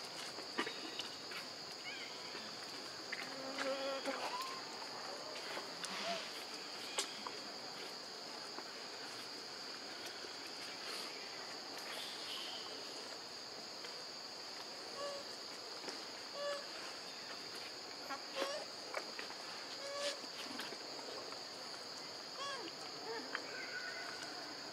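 Steady, high-pitched drone of an insect chorus, with scattered clicks and brief faint chirps over it.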